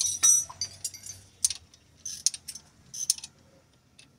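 Metal hand tools clinking and clicking: a loud jangle of metal at the start, then a few short separate clicks and clinks.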